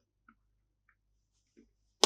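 Near silence broken by three faint, short ticks from handling candy packaging.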